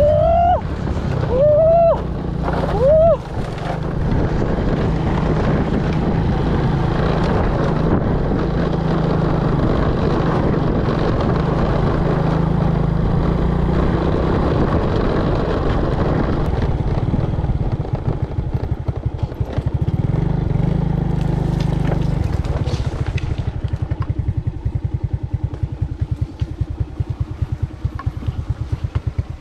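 Small motorcycle engine running under way, its pitch shifting with the throttle. About two-thirds of the way through it picks up briefly, then settles to a slower, steady putter.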